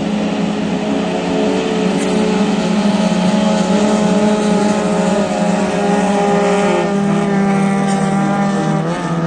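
Racing boat engines running loud and steady, several engine notes at once, one wavering up and down in pitch; the sound eases slightly near the end.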